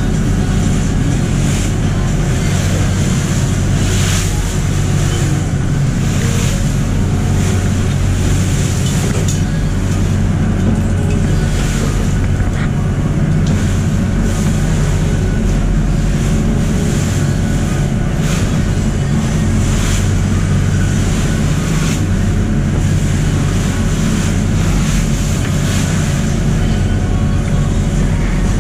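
A lobster boat's engine running steadily under way, with waves rushing and splashing against the hull in surges every few seconds.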